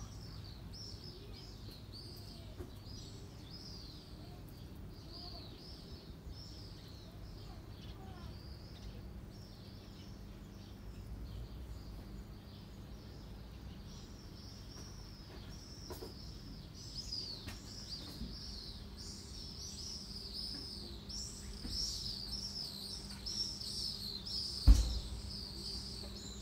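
Small birds chirping over and over, the chirping growing busier in the second half, above a steady low background rumble. A single thump sounds near the end.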